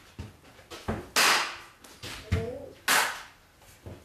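Hard whacks of a wooden paddle and a shovel swung at a hanging target, about five hits roughly a second apart, the two loudest trailing off briefly.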